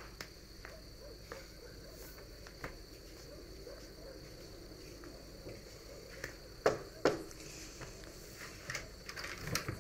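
Night ambience with a steady high chirr of crickets, under soft footsteps at a slow walking pace. Two sharper thuds about seven seconds in, and a few small knocks near the end.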